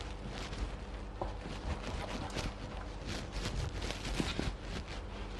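Thick bessara (fava bean purée) simmering in a pot while a wooden spoon stirs it: irregular small pops and clicks from the bubbling and the spoon against the pot.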